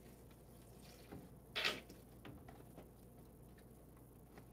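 Handling a carton of beef broth: faint scattered ticks and clicks, with one short crackle about two seconds in from working its plastic cap and seal open.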